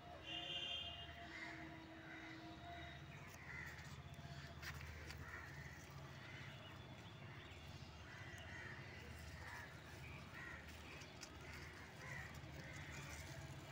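Faint crows cawing repeatedly, with a few soft rustles of vine leaves as a hand moves through them.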